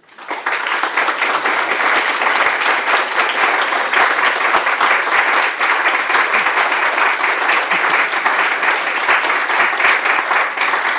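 Audience applauding: many hands clapping, rising within the first half second and then holding steady.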